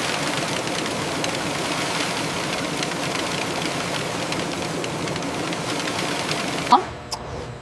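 Steady factory machinery running, a dense even noise scattered with many small ticks. It cuts off abruptly with a short sharp sound near the end, leaving a quieter hum.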